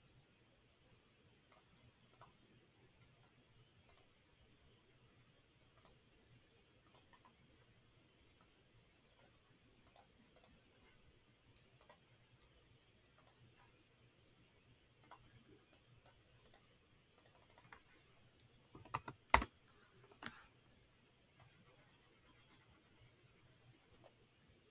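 Scattered, irregular sharp clicks from a computer mouse and keyboard being worked, with a quick run of clicks about seventeen seconds in and a louder knock about nineteen seconds in, over faint room tone.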